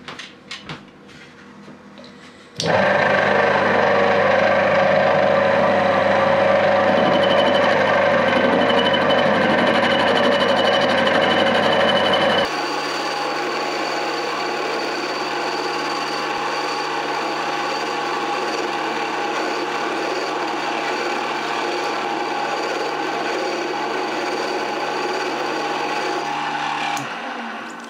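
1D601 benchtop lathe starting up about two and a half seconds in and running steadily with its chuck spinning while it turns a steel bolt. About halfway the sound changes abruptly to a thinner, higher whine, and the machine runs down near the end.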